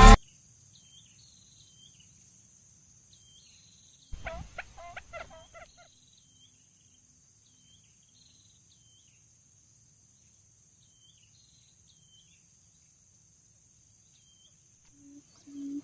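Outdoor wildlife sound: a steady high insect drone with faint, repeated short bird chirps. About four seconds in comes a louder quick run of falling call notes, a bird calling, lasting a couple of seconds.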